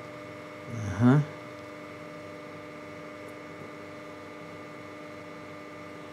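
Steady electrical hum made of several fixed tones, with a short vocal sound from a man about a second in.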